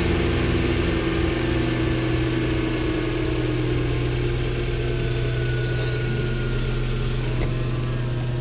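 VW Passat 1.8T (AWM) turbocharged inline-four idling steadily, running smoothly on a newly replaced crankshaft position sensor.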